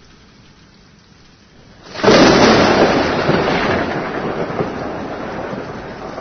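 Steady rain, then a sudden loud thunderclap about two seconds in. It rolls on and slowly fades over the following seconds, with the rain continuing underneath.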